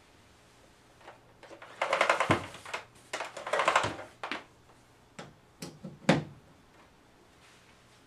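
Hard plastic clicking and rattling as a Dyson DC05 cylinder vacuum cleaner is handled while switched off. Two short bursts of rattling come about two and three and a half seconds in, followed by a few single sharp clicks.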